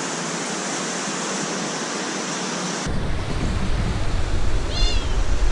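Steady rushing of a jungle stream. About three seconds in it cuts to a louder, gusty rumble like wind buffeting the microphone over the water, and near the end a short high bird call falls in pitch.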